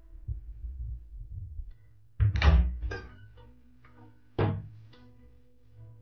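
Two heavy knocks about two seconds apart, each leaving ringing tones that die away, after a low rumble in the first two seconds.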